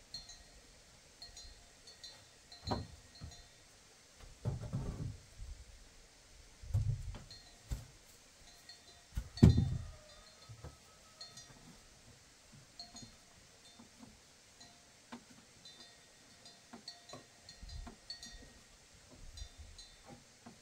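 A few dull knocks and thuds, about five in all, the loudest about nine and a half seconds in, over short faint high-pitched blips dotted throughout.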